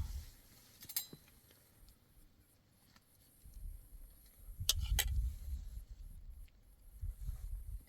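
A few sharp clinks: one about a second in and two close together about five seconds in, the loudest, over patches of low rumbling noise.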